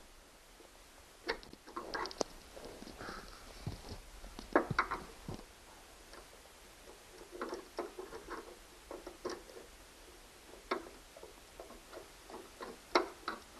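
Scattered small clicks, taps and scrapes of a screwdriver working a screw out of a treadmill motor cover, irregular and a little louder in brief clusters.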